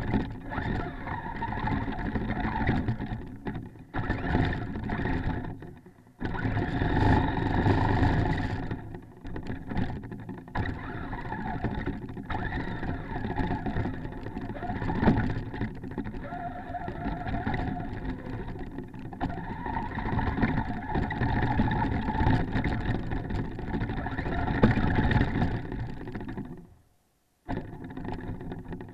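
Traxxas Stampede RC truck driving through snow, heard from a camera mounted on the truck: its motor runs steadily, rising and falling with the throttle, over the rumble of the tyres and chassis. The sound dips briefly a few times and drops out for about a second near the end.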